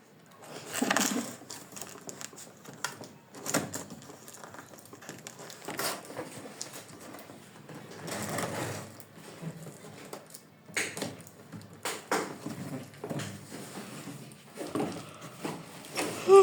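Fan packaging being handled and opened: irregular rustling, crinkling and light knocks of box and wrapping.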